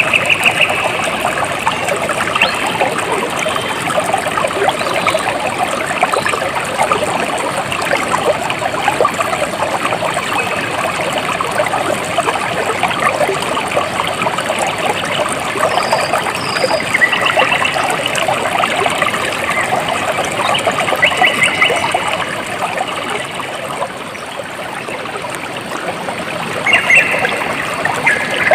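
Water trickling and splashing steadily, like a small stream running over stones, with a dense, even patter. It softens a little about three-quarters of the way through, then picks up again.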